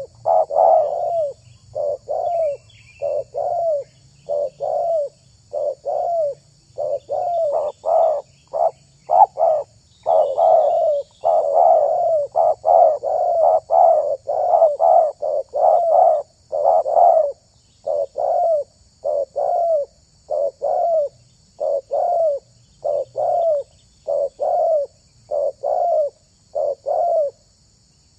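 Spotted doves cooing, a long unbroken series of short repeated coos, thicker in the middle where calls seem to overlap. Faint chirps of small birds and a steady high insect hiss sit behind.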